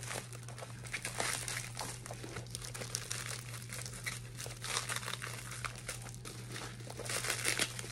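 Packing material crinkling and rustling in irregular bursts as a package is unwrapped by hand, with a steady low hum underneath.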